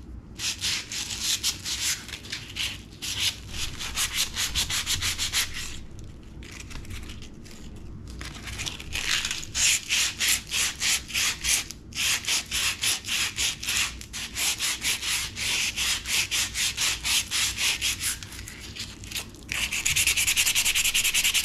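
Sandpaper rubbed by hand over a rusty steel trailer hitch pin to clean off the rust, in quick back-and-forth strokes several a second. It pauses briefly a couple of times, then turns to a steadier, louder scrubbing near the end.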